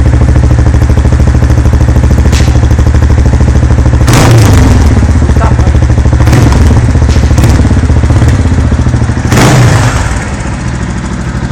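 Motorcycle engine running loud through an exhaust with its two-way valve opened fully, blipped several times with sharp cracks over a steady firing beat; it drops quieter about ten seconds in.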